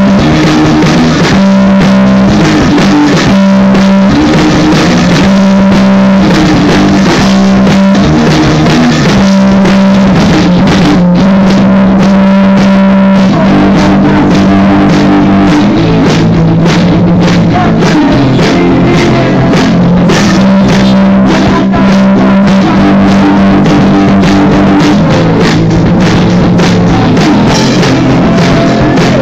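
A live rock band playing loud: electric guitar and a drum kit, with a singer on a microphone.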